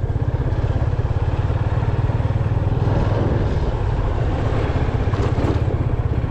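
Motorcycle engine running steadily at low riding speed, its exhaust note an even, quick pulse.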